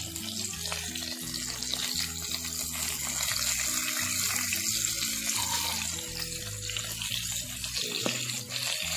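Batter-coated sardines (tamban) sizzling and bubbling steadily as they shallow-fry in hot oil in a pan.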